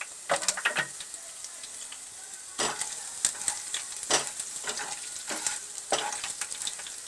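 Crushed coriander seeds and whole dried red chillies sizzling in hot ghee in a kadhai, with a spoon clicking and scraping against the pan in short stirring strokes every second or so.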